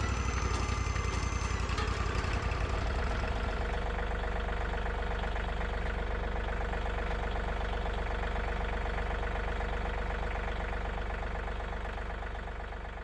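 Portable band sawmill's engine running steadily at idle, with a high whine over it for the first couple of seconds that then stops. The engine sound starts to die away near the end.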